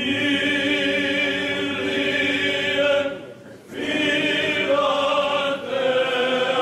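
Choir singing Orthodox Byzantine-style chant in long held notes. The singing breaks off for about half a second roughly three seconds in, then a new phrase begins.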